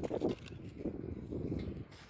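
Dogs taking rotis from a hand: faint, irregular animal sounds, a little louder near the start.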